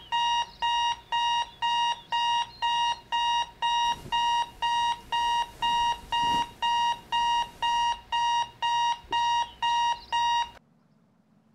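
Electronic alarm clock beeping, short high-pitched beeps about two a second; the beeping cuts off suddenly near the end.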